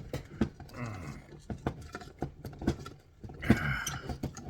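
Irregular metal clicks and knocks of hand tools working the tight nuts and bolts of a large electrical receptacle, with a couple of short, strained sounds of effort in between.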